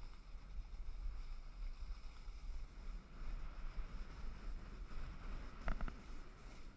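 Wind buffeting a head-mounted GoPro action camera, with a steady hiss of snow scraping underfoot as the rider slides down a groomed slope. A few short knocks come near the end.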